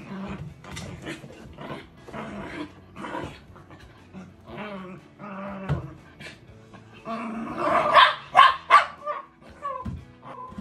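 A Siberian husky and a Shiba Inu play-fighting, with repeated growls and barks, and a run of louder, sharper barks about three quarters of the way through.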